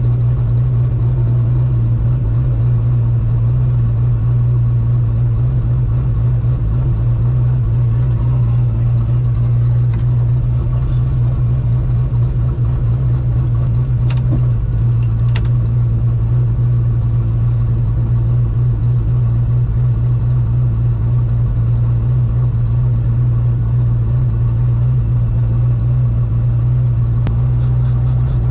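Turbocharged 5.3 L LS V8 idling steadily at a constant engine speed, just before a launch. About halfway through there are two faint clicks.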